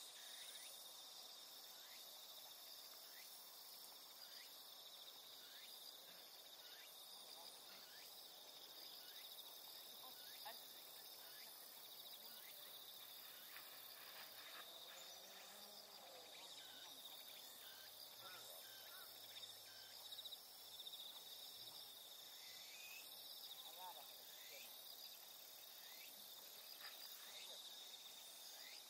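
Faint, steady, high-pitched insect chirring from the grass, with a few faint short chirps over it.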